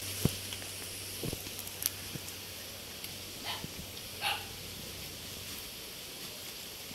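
Two short dog barks, a little under a second apart, about halfway through. A sharp knock near the start and a few fainter clicks come from handling.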